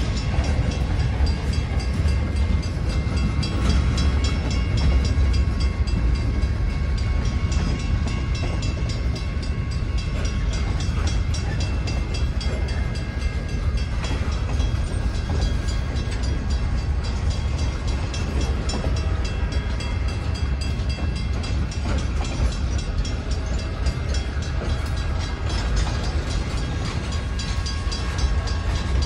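Freight cars of a Great Lakes Central Railroad train rolling past at close range: a steady heavy rumble of wheels on rail, with a few thin, steady high-pitched tones riding over it.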